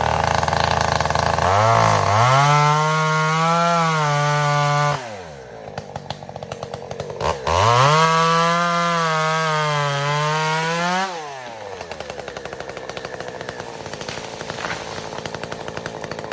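Two-stroke chainsaw run up to full throttle twice, each time for about three seconds, dropping back to a rattling idle between and after. It is cutting a popple (aspen) tree to fell it.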